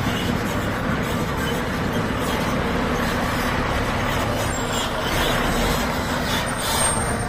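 Concrete mixer truck's diesel engine running steadily.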